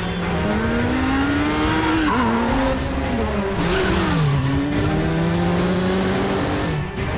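BMW boxer-twin motorcycle engine revving hard through the gears, its pitch climbing and dropping several times before a long steady climb near the end.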